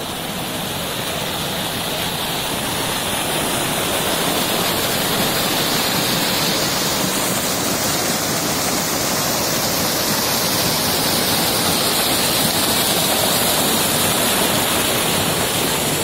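Stream water rushing and splashing over boulders in a small waterfall, a steady full rush of noise that grows slightly louder over the first few seconds.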